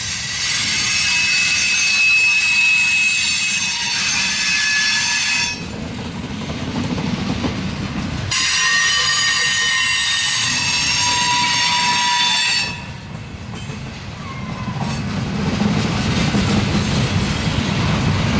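Loaded coal hopper cars rolling past, their wheels giving a shrill, steady squeal for about five seconds, stopping abruptly, returning for about four seconds and cutting off again. Between the squeals and after them, only the low rumble of wheels on rail is heard.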